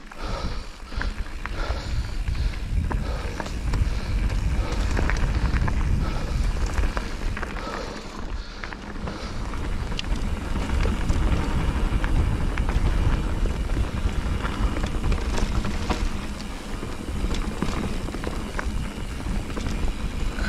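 Wind buffeting the microphone of a camera moving fast downhill: a steady low rumble that swells and eases, with scattered small clicks and scrapes over it.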